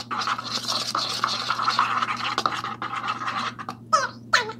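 A fork beating pancake batter in a bowl: fast, scratchy, rhythmic strokes of the utensil against the bowl. The stirring stops near the end and two short sliding squeaks follow.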